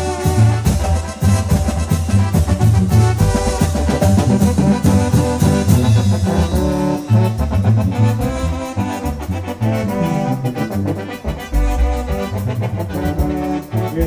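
Live band playing an instrumental passage, with a brass-sounding melody over keyboards and a drum kit.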